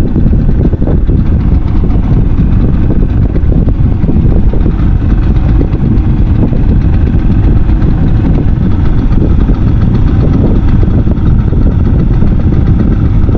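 Boat engine running steadily, with loud low wind rumble on the microphone.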